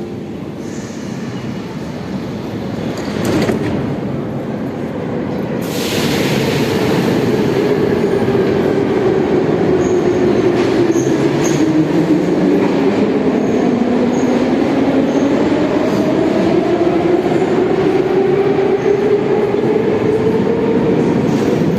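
Metro train running through a tunnel, heard from inside the car: a steady rumble of wheels on rails that gets louder about six seconds in. An electric traction-motor whine falls and rises in pitch with the changing speed.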